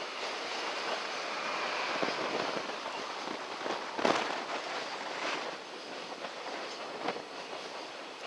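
Freight train of container flat wagons rolling past close by, a steady rattle of wheels on rail broken by sharp clacks. The loudest clack comes about four seconds in and a smaller one about seven seconds in.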